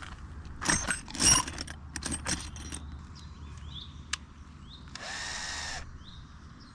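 Knocks and clatter of handling, then a short run of a small motor about five seconds in, like a handheld power tool pulsed once.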